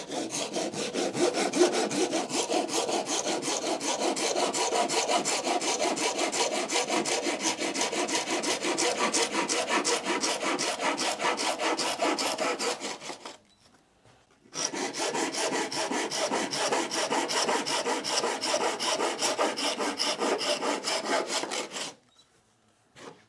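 Hand saw cutting through wood with quick, regular back-and-forth strokes. One long run of sawing stops briefly about halfway through, then picks up again for a second run that ends shortly before the end.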